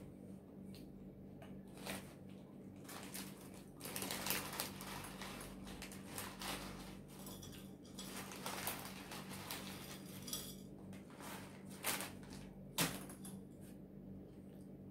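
Clear plastic food bag crinkling and rustling as it is handled, with light clicks and taps on a table and a couple of sharp knocks near the end.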